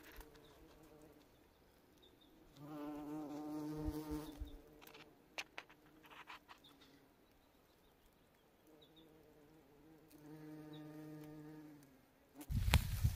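A bee buzzing in flight in two spells, one starting about two and a half seconds in and a longer one near the end. Just before the end a sudden loud low rumble sets in.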